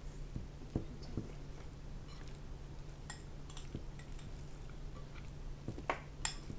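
Bare fingers mixing rice and pork curry on a plate: soft squishing of the food with scattered light clicks as fingers and nails touch the plate, over a low steady hum.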